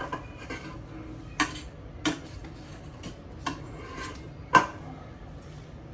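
Spoon and dishes clinking while ingredients are measured into a mixing bowl: about seven short, sharp clinks at irregular intervals, the loudest about four and a half seconds in.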